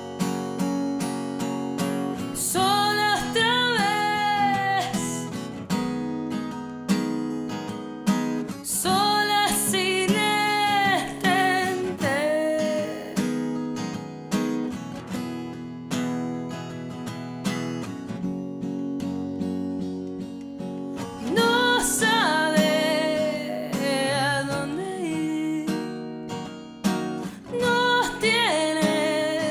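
Acoustic guitar strummed and picked as the accompaniment to a slow song, with a woman's voice singing long, held phrases over it several times.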